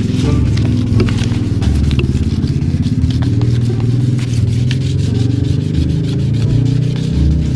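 Fine 2,000-grit sandpaper rubbed quickly back and forth by hand over a plastic headlight lens in short scratchy strokes, sanding off the cloudy surface, over background music.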